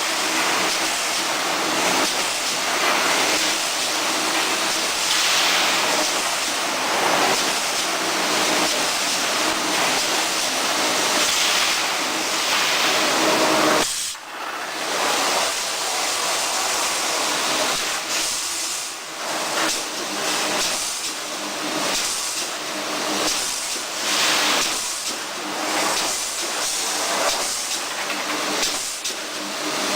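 Automatic wire mesh welding machine running, feeding bar wire and welding it: a steady loud hiss with uneven surges, briefly cut off about halfway through.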